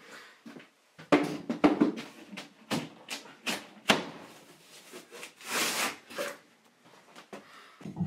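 Drywall being broken out of a wall by hand and with a hand tool: a series of irregular knocks and cracks, with a longer scraping, crumbling noise a little past halfway.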